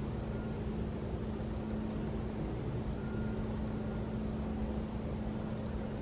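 Steady low machine hum: one constant droning note over a low rumble, with no clear birdsong.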